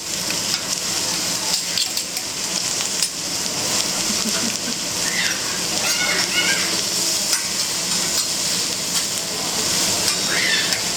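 Food sizzling steadily on a hot hibachi griddle, with the light clicks and scrapes of metal spatulas working it.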